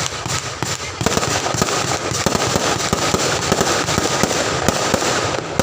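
Fireworks going off: a dense, continuous run of bangs and crackles.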